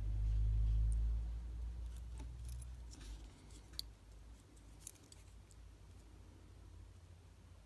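Light ticks and clicks of a small vintage Casio LCD watch circuit board module being handled and turned between the fingers, with two sharper clicks about four and five seconds in. A low rumble at the start fades out over the first three seconds.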